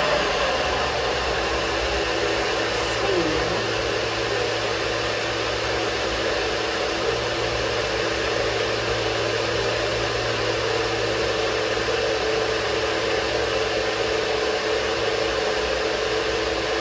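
Electric blender running steadily at full speed, blending fruit into a smoothie.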